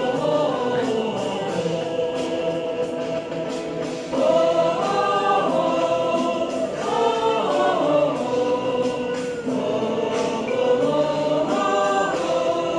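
Choral singing with instrumental backing and a steady beat: sustained wordless vocal lines, swelling about four seconds in.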